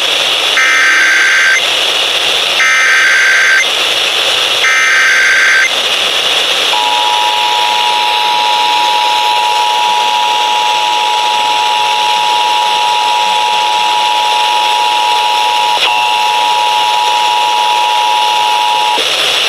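Emergency Alert System test on FM radio: three roughly one-second bursts of SAME header data, a screechy two-tone digital warble, then the EAS attention signal, two steady tones near 853 and 960 Hz sounding together, held for about twelve seconds. A steady reception hiss runs underneath.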